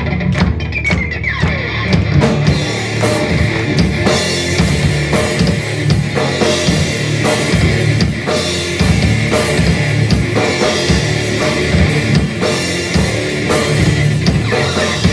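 Live rock band playing loud: electric guitar, bass guitar and a drum kit with bass drum and snare.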